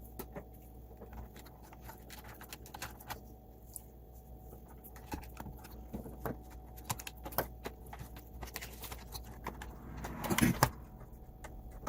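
Scattered light clicks and taps of Roomba i7+ plastic parts being handled and fitted. A louder cluster of knocks and rattling comes about ten seconds in.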